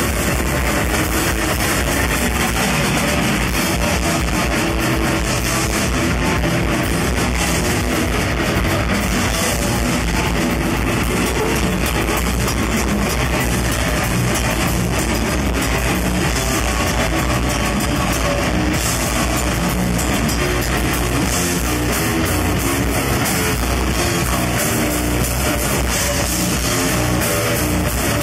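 A bestial death metal band playing live: two distorted electric guitars, bass guitar and drum kit, loud and dense without a break.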